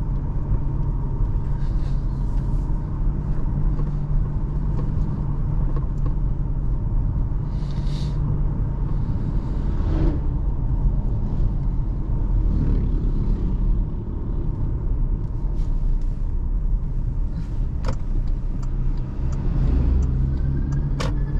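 A 2024 Toyota Hilux pickup being driven, heard from inside the cabin: a steady low engine and road rumble, with a few sharp clicks or knocks, about three over the span.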